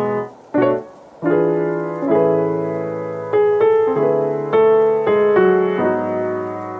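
Background music: soft electric-piano chords, with a short break about half a second in.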